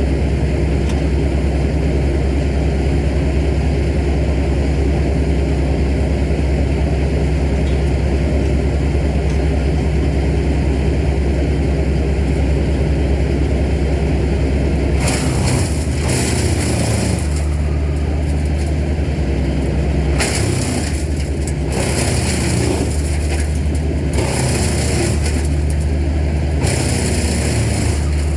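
Heavy engine of tree-service machinery running steadily at a constant speed. From about halfway in, repeated harsh, hissy bursts come and go over the engine.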